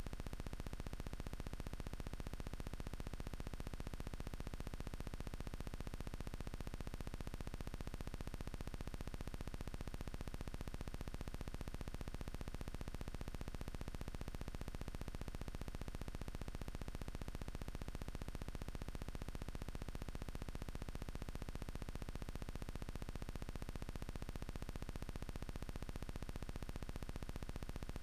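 Steady, even hiss with a low hum underneath and no distinct events such as shots: a recording noise floor.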